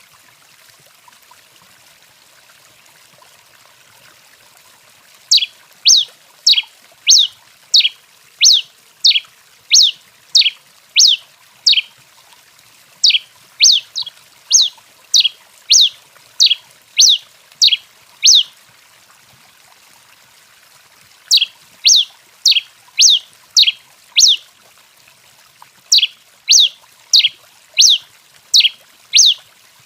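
Tico-tico-rei (a Coryphospingus finch) singing a loud series of sharp, down-slurred notes, about two a second, in four runs with short pauses between them. A faint steady hiss lies underneath.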